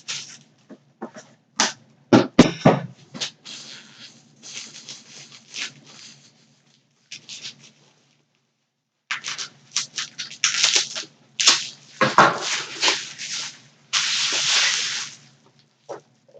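Cardboard shipping box being opened and unpacked by hand: irregular knocks, crinkles and rustling of cardboard and packing material, pausing briefly midway, with a longer rustle near the end.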